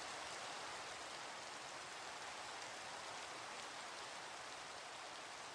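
Faint, steady rain ambience: an even hiss of rainfall that grows slightly fainter near the end.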